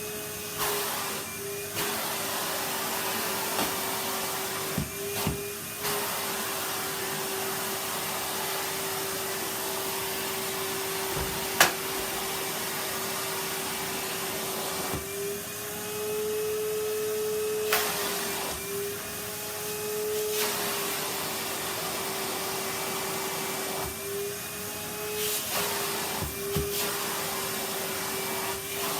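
Vacuum cleaner running steadily with a whining motor note that shifts slightly in pitch several times, with scattered knocks and one sharp click about twelve seconds in.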